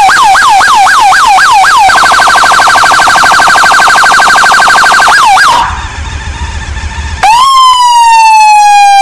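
Electronic police siren on a 2007 Honda ST1300 police motorcycle, switched through its modes. First comes a yelp of quick rising-and-falling sweeps, about five a second, then a much faster warble, and the siren cuts off about five and a half seconds in. After a short pause it sounds one long horn-like blast whose pitch sags slightly.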